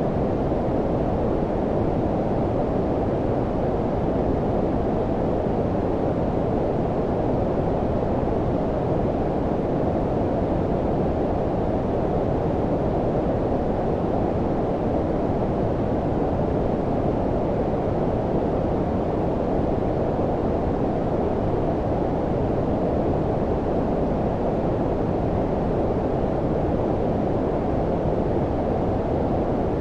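Steady low-pitched synthetic noise, a deep rumbling hiss with almost nothing above the midrange, unchanging throughout; brown-noise style sleep noise.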